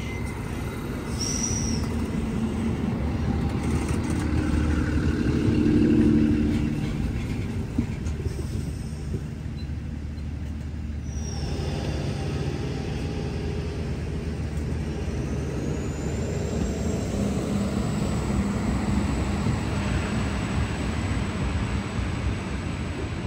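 Diesel train moving through a station: a heavy low rumble that swells to its loudest about six seconds in, then eases but keeps going. A brief high squeal comes about a second in, and a high whine rises from about fifteen seconds in and then holds.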